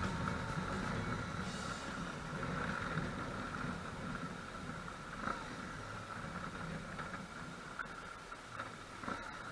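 BMW GS Adventure motorcycle's boxer-twin engine running steadily, gradually fading away.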